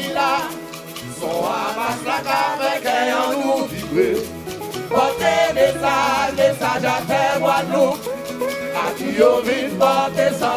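Live Guadeloupean band music: men singing into microphones, one voice after another, over hand drums, a calabash shaker and a bass line.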